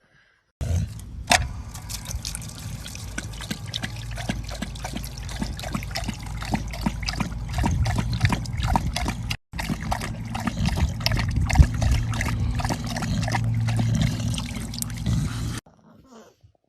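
Water trickling and splashing, with a dense run of small clicks and splashes over a steady low hum. It breaks off sharply once midway and stops suddenly near the end.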